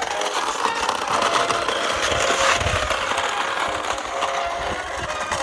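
Small electric motor and plastic gearbox of a 1980s radio-controlled off-road car whirring and buzzing steadily.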